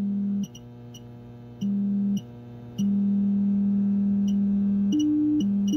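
Sine-wave test tone from a signal generator, sent over the air by a kit FM transmitter and heard through a radio's speaker: a low steady tone that cuts in and out three times and jumps higher for a moment near the end. A constant 60-cycle hum runs underneath.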